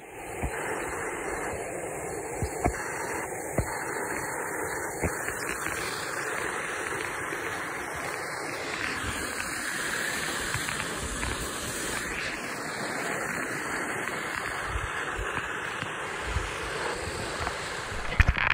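Steady wind rushing over a phone's microphone, with a few light knocks from the phone being handled.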